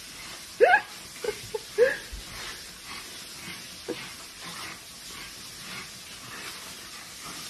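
A few short vocal calls rising in pitch, the loudest two near the start, over a steady hiss.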